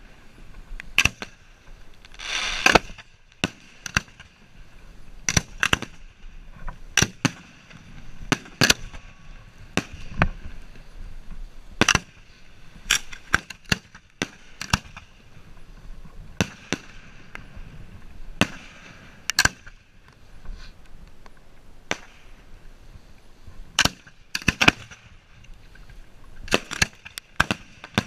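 Fireworks heard up close from the firing line: an irregular stream of sharp bangs from shells and multi-shot cakes launching and bursting, several a few seconds apart and some in quick clusters. A brief hissing, crackling stretch comes about two and a half seconds in.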